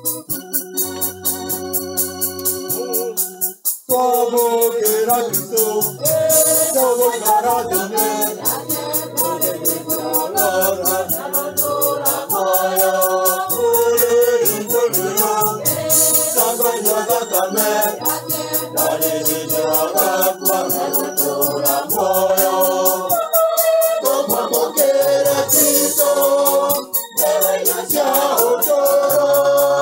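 Kikuyu Catholic hymn: an electronic organ plays held chords alone, then about four seconds in a choir comes in singing over the organ with a steady ticking beat.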